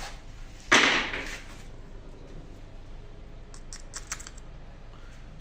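Hand-work on a power steering rack as its plastic lock is pressed into place: a sharp scraping knock about a second in, then a quick run of small clicks.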